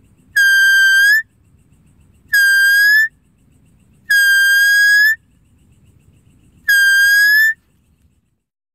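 A loud, high, steady-pitched deer-luring call sounded four times, each call just under a second long and rising slightly in pitch at its end. A faint low rumble runs between the calls.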